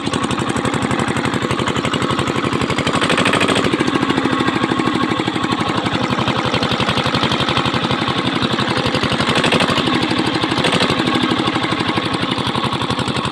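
Freshly rebuilt Usha 5 hp single-cylinder diesel engine running steadily with a fast, even firing beat. It runs smoothly, which the mechanic takes as a sign that the new bore and piston are set correctly.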